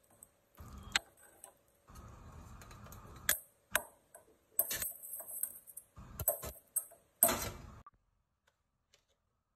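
A metal ladle clinks and scrapes against an aluminium pressure cooker while vegetables in liquid are stirred. Then a bowl knocks on the rim as carrot sticks are tipped in: a series of sharp clicks and knocks that stops about eight seconds in.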